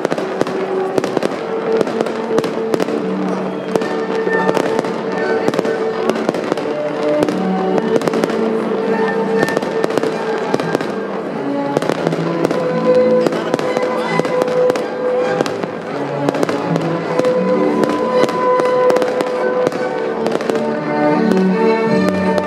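Fireworks going off without a break: a dense run of bangs and crackles over a Viennese waltz playing.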